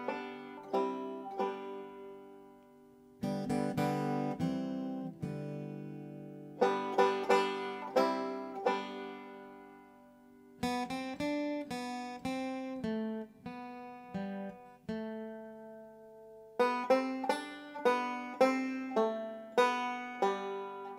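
Background music on a plucked acoustic string instrument: short runs of picked notes, each left to ring and fade before the next run starts.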